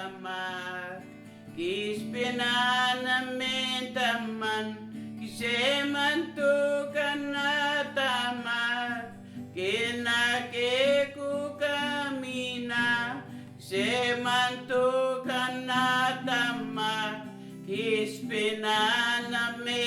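A song: a man singing with acoustic guitar accompaniment, in long held phrases several seconds each.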